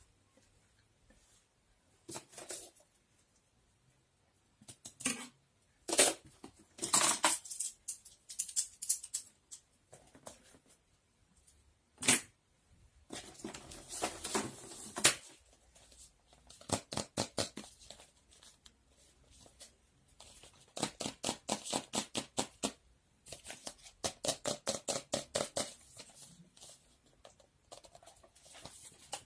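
Objects being handled close up: scattered sharp clicks and rustles, with several runs of quick, even ticking.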